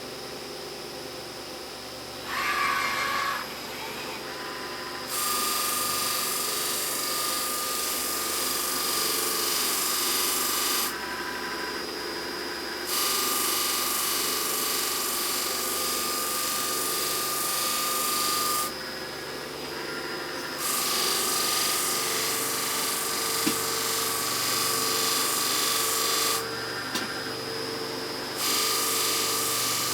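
Large-wheel polishing buffer running steadily while a robot presses a machined knob part against the rouged wheel in repeated passes: a loud hissing grind lasting five or six seconds each time, four times, with quieter gaps of a couple of seconds between as the part comes off the wheel.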